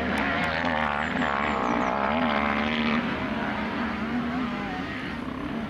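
Several enduro dirt bike engines running and revving together, their pitches wavering up and down as the throttles open and close. The sound eases a little about three seconds in.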